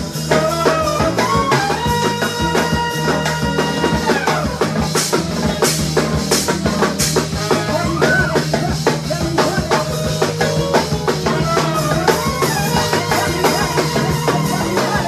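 Live band rehearsing a song: a drum kit keeps a busy steady beat under a bass line, with held and sliding melody notes on top.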